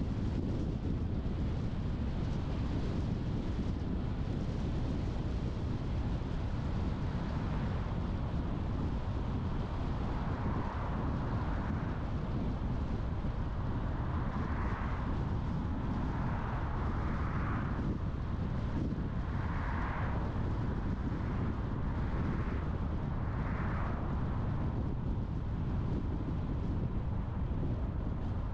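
Steady low rumble and tyre hiss of a car driving on town roads, with several brief swells of hiss partway through.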